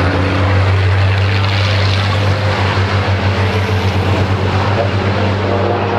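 Racing truck's diesel engine under load on the circuit, a loud, steady deep drone with higher overtones and no change in pitch.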